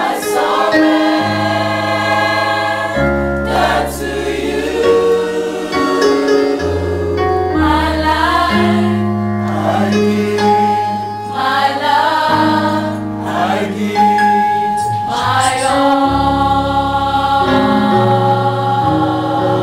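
Mixed choir of men's and women's voices singing a gospel song in harmony, picked up through handheld microphones, over held low bass notes that change every second or two.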